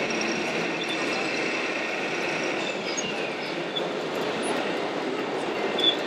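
Steady, even din of a busy exhibition hall, with a few faint high chirps and a short sharp click just before the end.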